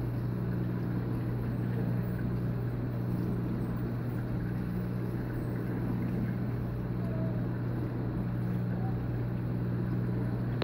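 Reef aquarium's pumps humming steadily, a low mains-pitched drone with a wash of circulating-water noise under it.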